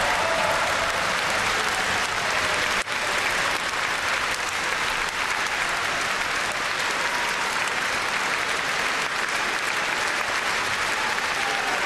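Sustained applause from a large audience, a dense steady clapping.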